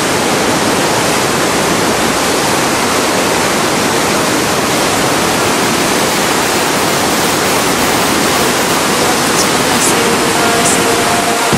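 White-water rapids of the Zambezi River rushing as a continuous loud, steady noise.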